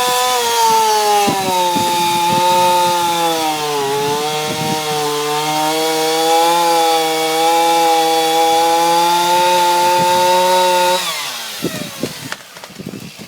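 Chainsaw running at high revs while cutting into a tree, its pitch sagging and recovering as the chain bites into the wood. About eleven seconds in the throttle is released and the engine note falls away, followed by a few sharp knocks.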